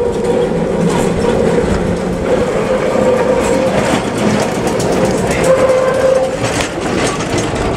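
Heritage electric tram rolling past close by, its wheels clicking over the rails with a steady whine running under the rolling noise.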